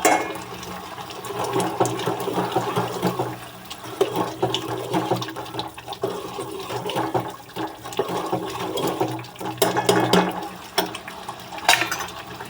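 Fried soya chaap pieces being tipped into a pan of hot onion-tomato masala and stirred: a steady sizzling, bubbling noise with frequent small knocks of the spoon against the pan.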